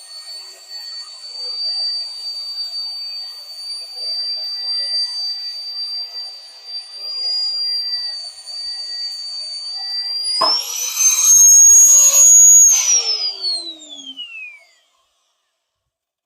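Electric drill working in half-inch steel plate: a steady high motor whine under load. About ten seconds in it jumps higher and louder, then winds down in pitch as the motor coasts to a stop, and the sound cuts out.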